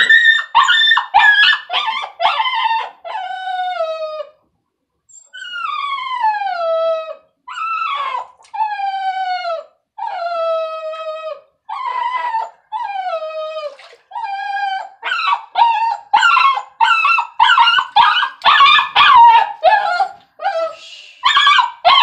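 Small dog crying loudly in distress at being bathed. It starts with quick high yelps, then a run of long whining howls that each slide down in pitch, then rapid yelps again.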